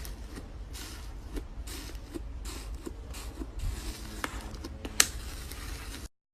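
Crunchy slime being squeezed and pressed by hand: a run of crackling, squishing bursts about two a second, with a few sharp snaps, the loudest about five seconds in. The sound cuts off abruptly just before the end.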